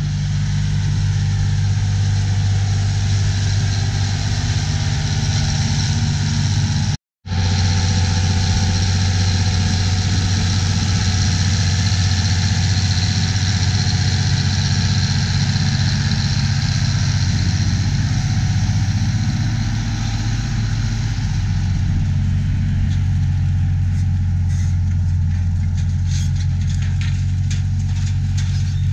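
Allis Chalmers 4W-305 tractor's 12-litre six-cylinder diesel engine running steadily under load while pulling a disk ripper through the soil. The sound cuts out for an instant about seven seconds in.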